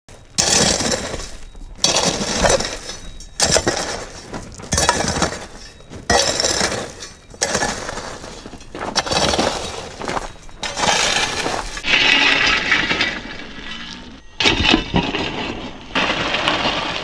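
Shovel blade driving into loose rocky gravel again and again, about once every second and a half, each stroke a sudden crunch with stones clattering and clinking.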